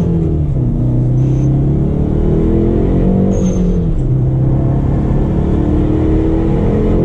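Hyundai Veloster N's turbocharged 2.0-litre four-cylinder accelerating hard, heard from inside the cabin with the windows and exhaust valves closed. The pitch climbs, drops about three seconds in and climbs again. Short high-pitched hisses come from the HKS pull-type blow-off valve venting boost as the throttle eases.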